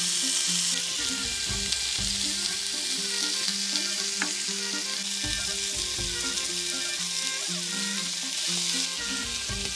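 Sliced lamb sausage and blood sausage frying in a hot pan, a steady sizzling hiss.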